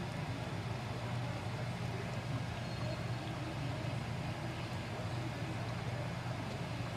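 Pot of beans at a full boil, bubbling steadily, over a steady low hum.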